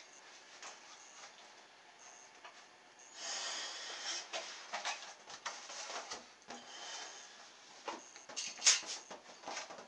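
Handling sounds as a balloon and plastic milk-carton boat are readied: a brief hiss about three seconds in, then scattered light clicks and knocks, the sharpest near the end.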